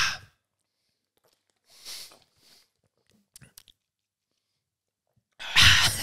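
A man bursts into loud laughter near the end, after a few quiet seconds with soft breaths and a few faint clicks.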